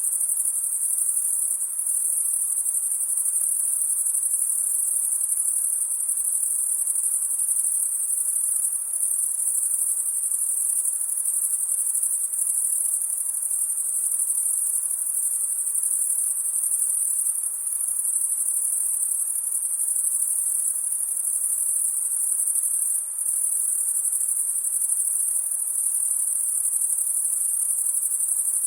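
Dense, continuous high-pitched chorus of crickets chirring on a summer night, steady with no pauses.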